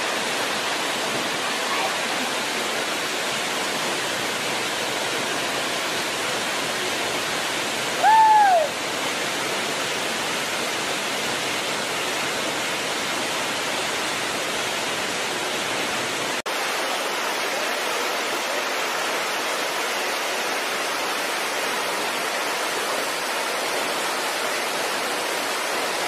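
Steady rush of a waterfall pouring into its pool close by. About eight seconds in, a short, loud, high-pitched call rises and falls over the roar.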